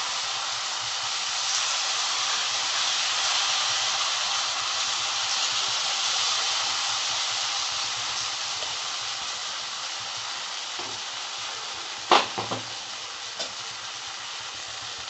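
Uttapam batter sizzling in hot oil in a frying pan, a steady hiss that slowly dies down. About twelve seconds in, a sharp tap followed by a few lighter ones.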